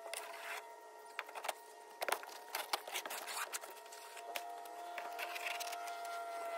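Rotted, carpet-covered wooden strip being pried loose and dragged up from a pontoon boat deck: scattered scrapes, cracks and knocks, the loudest about two seconds in. A faint steady hum runs underneath.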